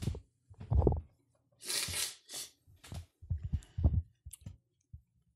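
A man's short breaths and small mouth sounds, scattered and brief, with faint clicks.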